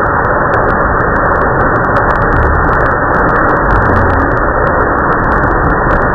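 Waterfall's rushing water, a loud, steady wash of noise with scattered small clicks over it.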